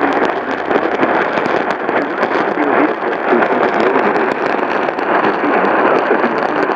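Radio static: a loud, steady hiss with dense crackling.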